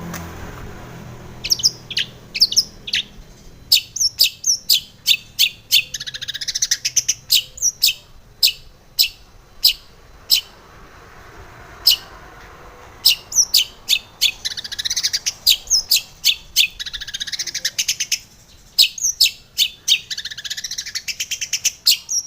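Long-tailed shrike (cendet) singing in fast runs of sharp, high chips and harsh chatter. The runs are broken by a few short pauses: about a second in, around the middle, and shortly before the end.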